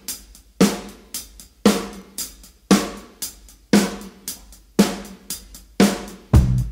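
Music: a drum kit beat of snare and kick hits with hi-hat, a strong hit about once a second and lighter hits between. Bass notes come in near the end.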